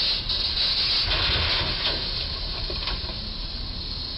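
Steady hissing noise, a little louder in the first two seconds and easing off slightly after about three.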